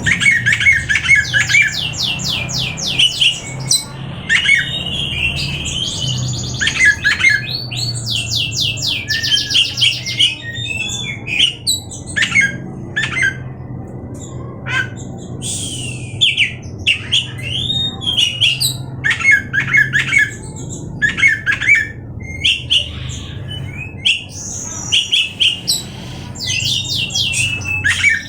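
Oriental magpie-robin (kacer) singing a loud, varied song of rapid trills, whistled glides and harsh notes, phrase after phrase with short pauses, over a steady low hum.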